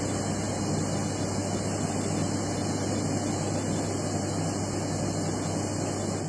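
Steady hiss with a constant low hum underneath: the amplified background noise of a voice recording played back to listen for spirit voices.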